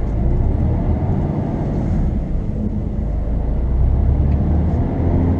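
Dump truck's diesel engine and road noise heard from inside the cab while driving: a steady low drone, swelling a little about four seconds in.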